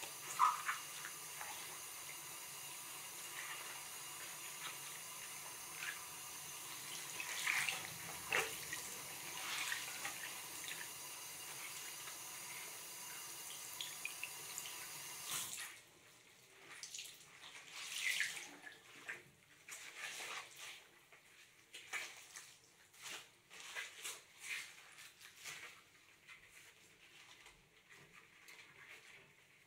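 Bathroom tap running steadily into a ceramic washbasin while a cloth is rubbed over it. About halfway through, the water is shut off suddenly, leaving only the short, scattered rubbing and squeaks of rubber-gloved hands working a cloth over the basin.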